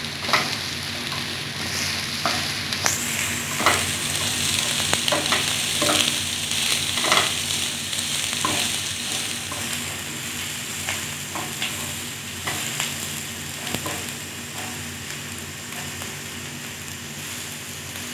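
Chopped cabbage, capsicum and onion sizzling in oil in a nonstick wok, stirred with a wooden spatula that scrapes and taps against the pan every second or so. The sizzle eases slightly toward the end.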